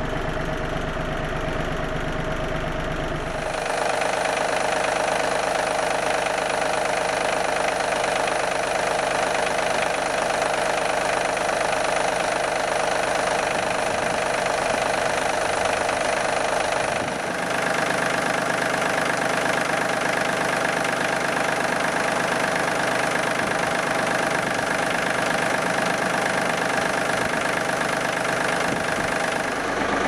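Yanmar US330 tractor's diesel engine idling steadily. Its tone changes abruptly about three seconds in and again about halfway through.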